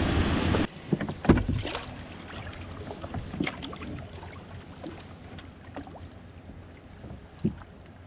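A steady rush of noise that cuts off abruptly under a second in, then oars working in the oarlocks of a small wooden rowing dinghy: scattered knocks and clicks with light water sounds from the strokes.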